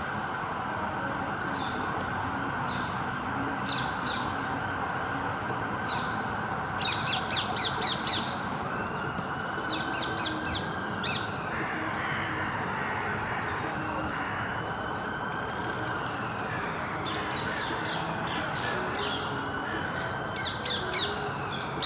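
Steady road-traffic noise with a siren wailing up and down three times, and a bird giving runs of harsh, rapid squawking calls, loudest about seven seconds in and again at the end.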